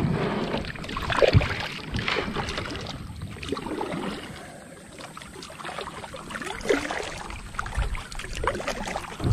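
Kayak paddle strokes, the blades dipping and splashing in calm river water, with dripping and a few sharp knocks, the loudest about a second and a half in.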